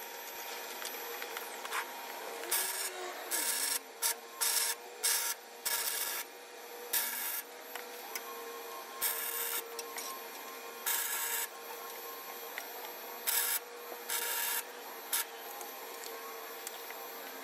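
Welder arcing in a string of about a dozen short bursts, each a fraction of a second long and cut off abruptly, typical of tack-welding a steel frame. They sound over a steady background hum.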